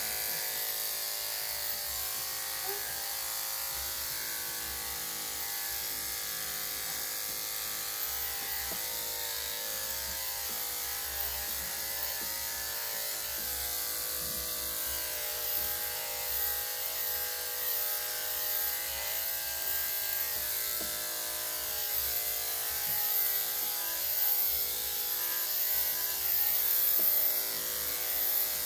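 Electric dog grooming clippers fitted with a #3 3/4 blade running steadily as they shave a Yorkshire Terrier's coat. The buzz grows a little louder and more uneven near the end.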